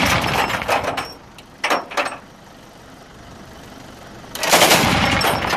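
Truck-mounted anti-aircraft gun firing rapid bursts: a burst ending about a second in, a short burst near two seconds, then after a pause a long burst to the end.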